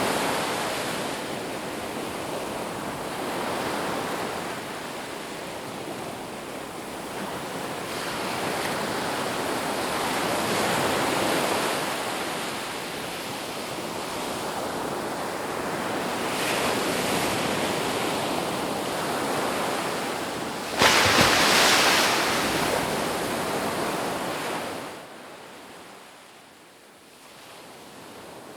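Sea surf: a continuous rush of waves that swells and ebbs every few seconds. About three quarters of the way through, a sudden louder wave surges for a few seconds, and after it the sound falls much quieter.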